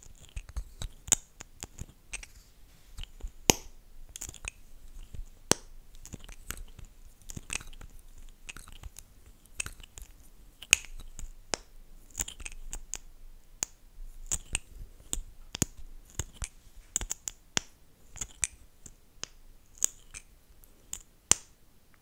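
Close-miked wet mouth sounds: lips smacking and clicking apart in short, irregular pops, several a second.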